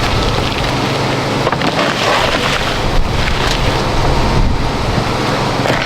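Steady wind noise on the microphone over a constant low hum, with a few faint knocks.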